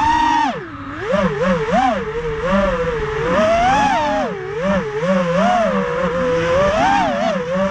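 FPV racing quadcopter's Racerstar 2205 2300kv brushless motors spinning three-blade DAL 5045 bullnose props: a loud buzzing whine whose pitch rises and falls constantly as the throttle is worked.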